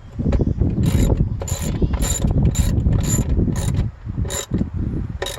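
Ratchet wrench tightening a 10mm battery hold-down bolt: strokes of rapid clicking about twice a second, with a few single clicks near the end.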